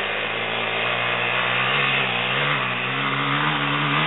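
Dirt bike engine running under throttle as it approaches, its pitch rising a little about two seconds in and growing slightly louder.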